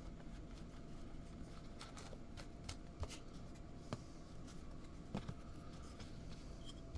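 Faint rustling with scattered light taps and clicks as a penny-sleeved trading card and fillers are packed into a small shipping box by hand.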